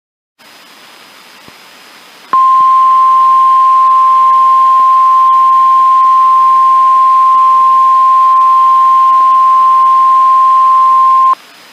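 Emergency alert attention signal, the single steady 1050 Hz warning alarm tone used on NOAA Weather Radio. It starts about two seconds in over faint radio hiss and cuts off after about nine seconds, just before an alert message is read.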